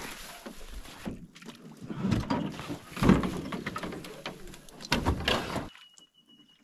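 A canoe being set down at the water's edge and pushed into the shallows: knocks and scrapes of the hull, with splashing and wading in shallow water. The loudest knock comes about three seconds in, and the sound cuts off abruptly near the end.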